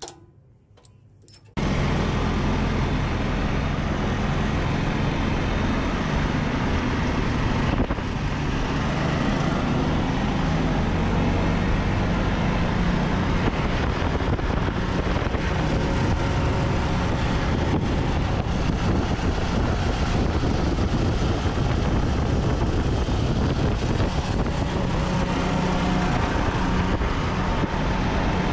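168cc 6.5 HP single-cylinder four-stroke petrol engine of a homemade cargo tractor running steadily while the tractor drives along. It cuts in suddenly about a second and a half in and holds an even level.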